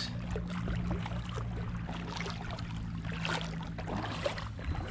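Shallow sea water sloshing and splashing around legs wading through it, in small irregular splashes, over a steady low hum.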